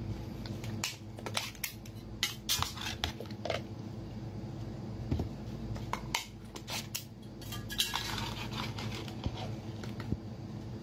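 Scattered clinks and knocks of serving trays being set down on a table and a glass sauce jar knocking against the dishes, over a steady low hum.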